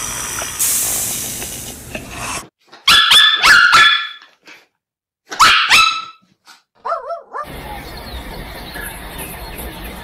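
A snake hissing for about two seconds, then a dog barking in two quick runs, the loudest sounds here, followed by a short whine.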